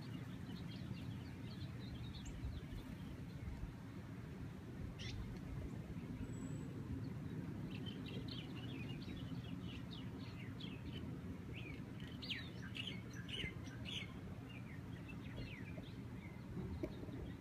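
Small birds chirping: a few scattered calls at first, then a quick run of many short chirps in the second half, over a steady low rumble of wind.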